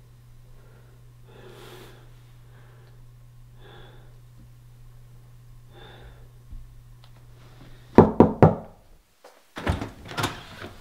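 Knocking on a door: about four quick, loud knocks, followed a second and a half later by a clatter of handle and latch as the door is opened. Before the knocks, faint sobbing over a low steady hum.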